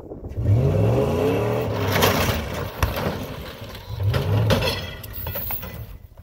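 A heavy pulling vehicle's engine revs up hard twice while a chained Toyota pickup is wrenched apart, with loud metal crunching and a sharp snap about three seconds in: the truck's leaf spring tearing off.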